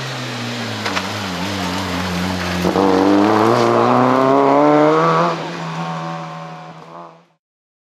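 Fiat Seicento rally car engine revving hard as the car accelerates past, its pitch climbing steeply for a couple of seconds, then dropping back and fading as it pulls away. The sound cuts off abruptly near the end.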